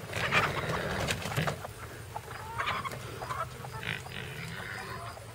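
A flock of laying hens clucking and calling, busiest in the first second and a half, with pigs grunting in the background.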